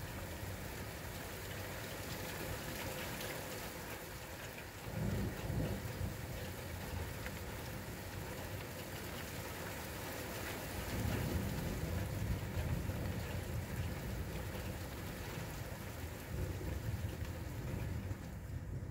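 Steady rain falling, with thunder rumbling twice: a short rumble about five seconds in and a longer, louder roll starting about eleven seconds in.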